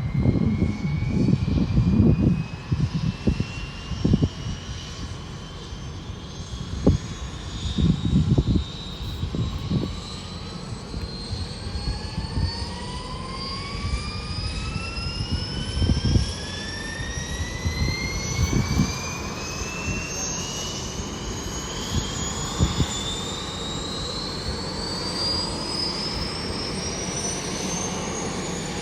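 Bell 205 helicopter turbine engines spooling up: a high whine climbs steadily in pitch, and a second rising whine joins about ten seconds in as another engine winds up. Gusty low rumble comes and goes in the first several seconds.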